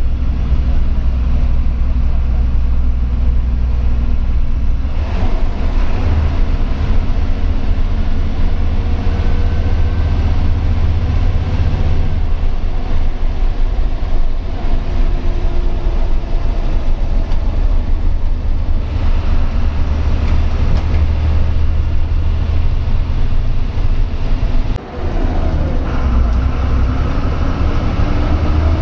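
Steady heavy rumble of a bus's diesel engine with road and cabin noise, heard from inside the moving bus, the engine note drifting slowly up and down. A brief break in the sound comes about 25 seconds in.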